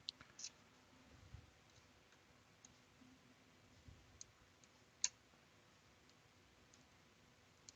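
Near silence broken by scattered small clicks and taps of parts and tools being handled in an assembly, with the sharpest click about five seconds in.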